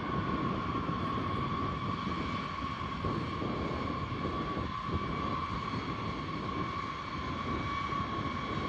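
Jet engines of B-52 bombers running as the aircraft taxi in line: a steady high whine over a dense rumble.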